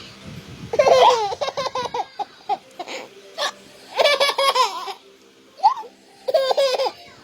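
A baby laughing in repeated short bursts, broken up by hiccups.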